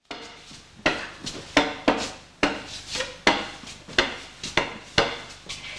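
A series of about nine sharp, woody knocks at uneven intervals, like something hard striking wood or a hard floor.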